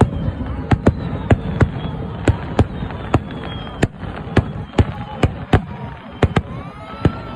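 A fireworks display with a quick, irregular string of sharp shell bursts, about two bangs a second, over a low murmur of the watching crowd.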